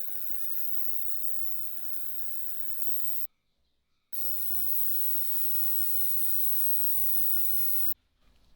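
A mains-powered electric tool humming with a strong hiss, switched on twice: once for about three seconds, then again after a short pause for about four seconds, each time starting and stopping abruptly.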